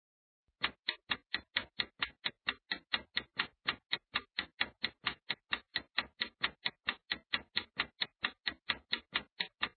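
Clock-tick sound effect for a countdown timer: even, rapid ticks, about four to five a second, starting about half a second in.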